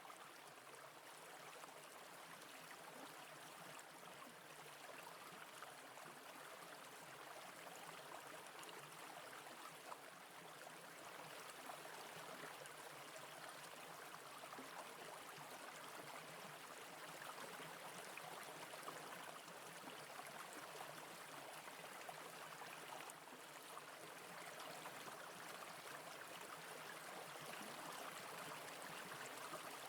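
Faint, steady running water of a small mountain brook, a continuous gurgling wash with no pauses.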